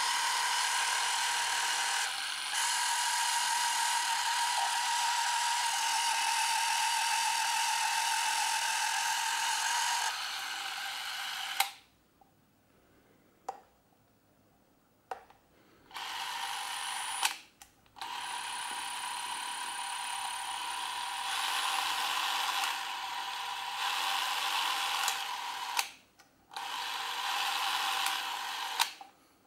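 Porst Reflex ZR 348 Super 8 cine camera's electric motor whirring steadily. It stops and restarts several times, with a sharp click at several of the starts and stops.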